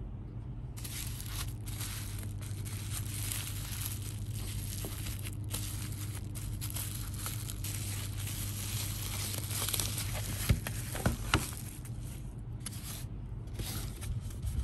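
Plastic bubble wrap being torn open and crumpled off a cardboard box: a continuous crackly rustle, then three sharp clicks a little past two-thirds through. A steady low hum runs underneath.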